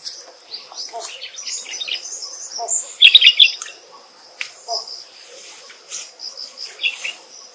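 Forest birds chirping and calling, with a loud flurry of chirps about three seconds in. Short lower calls recur every second or two over a steady high whine.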